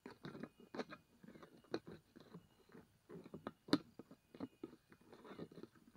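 Irregular crackling clicks and rustles close to the microphone, loudest a little past halfway, as a large grasshopper moves on stems and grass inside a clear plastic enclosure.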